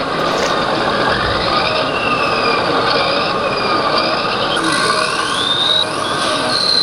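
Electric motor and gear whine of an RC model tractor, wavering in pitch, then rising steeply about five seconds in as the model speeds up, over the steady noise of the hall.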